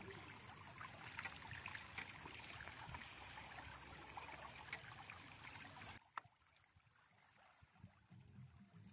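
Water streaming and trickling off a raised fishing lift net, with many small splashes of fish flapping in the mesh. The sound cuts off suddenly about six seconds in, leaving only faint low sound.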